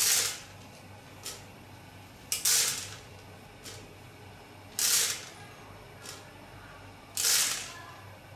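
Tablets tumbling inside the rotating clear drum of a Copley FR-1000 friability tester turning at 25 rpm. They make a brief clatter once per turn, four times about two and a half seconds apart, with a faint tick halfway between.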